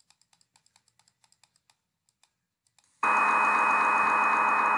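Faint computer keyboard and mouse clicks for about three seconds, then a CNC simulator's machine sound effect starts suddenly as the program runs and the spindle starts: a steady machine hum with a high, even tone on top.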